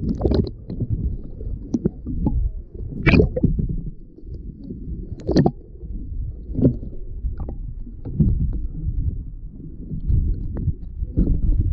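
Muffled low rumble and sloshing of water heard through a GoPro's waterproof housing held underwater. A few short, sharp sounds cut through, the loudest about three and five seconds in.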